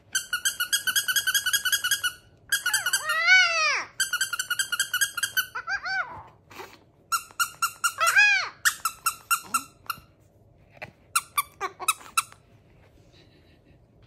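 Plush squeaky toy squeezed over and over: bursts of rapid high squeaks, about eight a second, broken by a few longer drawn-out squeaks that rise and fall in pitch. The squeaking stops a couple of seconds before the end.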